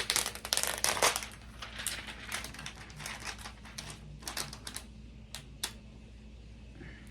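Unboxing a computer stand: packaging crinkling and clicking as it is handled, busiest in the first second or so, then scattered clicks and rustles that stop about six seconds in.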